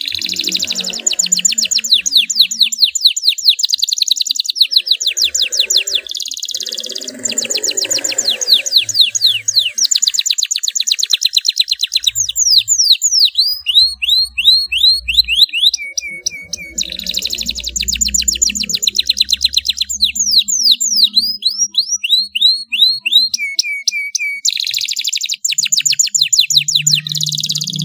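Domestic canary singing continuously in long rolling trills of very rapid repeated notes, broken around the middle by runs of quick falling sweeps, about three or four a second, and a couple of short held whistled notes.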